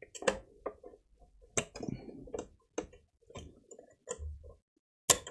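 Small irregular clicks and light scraping of a spatula working under a glued flex cable inside an opened Xbox Series X casing, with one sharper click near the end.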